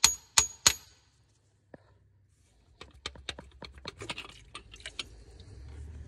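Ratchet wrench clicking on the water pump bolts, sharp metallic clicks about three a second that stop about a second in. After a pause, a run of lighter metallic clinks and rattles as tools and parts are handled.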